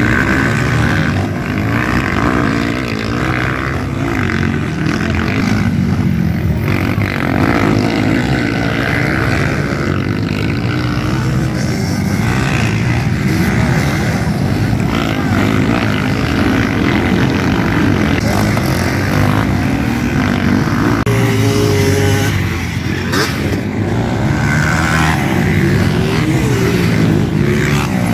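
Several motocross dirt bikes running on a dirt track, their engines revving and accelerating in overlapping waves that rise and fall in pitch without a break.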